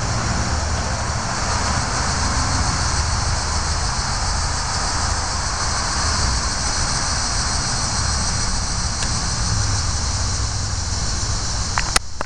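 Steady rumbling hiss of background noise, with one sharp click near the end.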